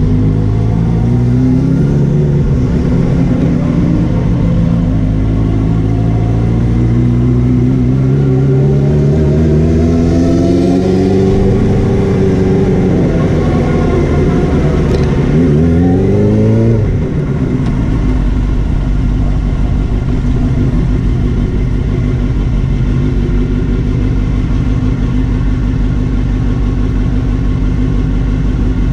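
Racing motorcycle engine heard from onboard at speed. The revs climb steadily for the first dozen seconds, dip and climb again briefly, then fall about 17 seconds in to a steadier, lower note.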